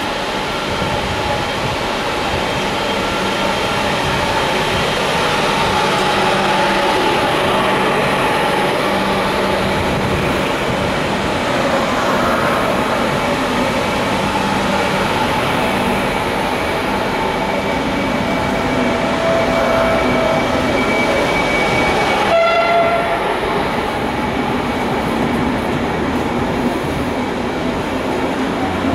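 Belgian SNCB intercity passenger train rolling slowly along a station platform: a steady rumble of wheels on rail with thin whining and squealing tones over it, and a short squeal about two-thirds of the way through.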